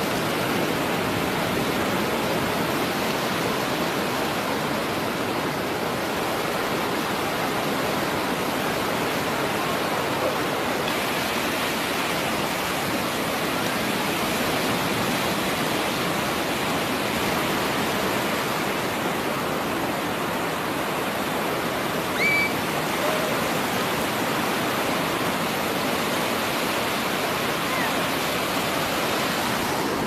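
Rough sea surf breaking on a beach: a steady rushing wash of waves. A brief, high, rising cry sounds about three-quarters of the way through.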